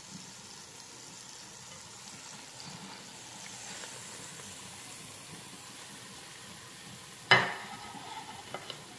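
Hot oil sizzling steadily in the enamelled cast-iron pot of an Instant Precision Dutch oven after searing pork tenderloin, as the pieces are lifted out with tongs. About seven seconds in comes one sharp knock, the loudest sound, followed by a couple of faint clicks.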